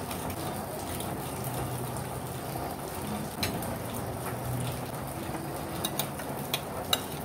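Spoons and forks clinking on plates and bowls as people eat, a few sharp clinks in the second half over steady background noise.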